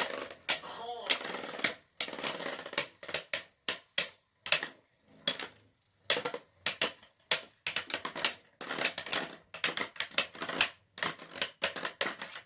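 3D-printed Beyblade spinning tops clashing in a battle stadium: a run of sharp, irregular plastic clacks, several a second.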